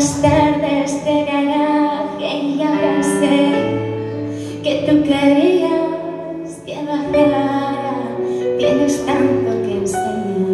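A young woman singing a slow pop song through a microphone with long held notes, over a steady instrumental accompaniment.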